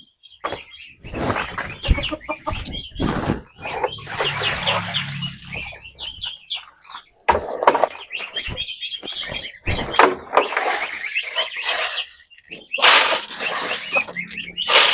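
Chickens clucking and peeping, mixed with many sharp knocks and rustles, like birds scratching and moving around feeders.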